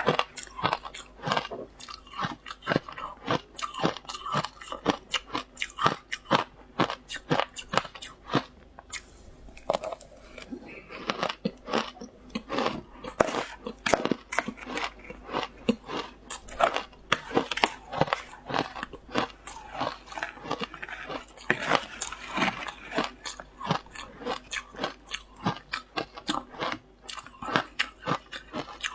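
Close-up crunching of frozen matcha ice being bitten and chewed, many sharp crunches a second, with a short pause partway through.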